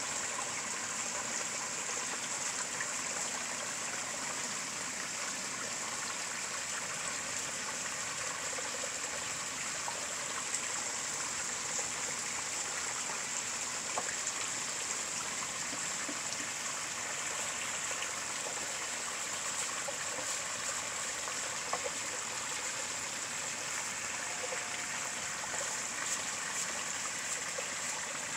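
Water running into a garden koi pond: a steady trickle and splash that never lets up.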